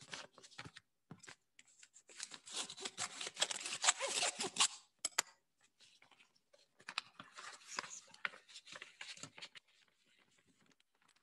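Paper rustling and crackling as a manila envelope is opened and the bid documents inside are pulled out and handled, in two spells, about two seconds in and again around seven seconds in, fading to faint handling near the end.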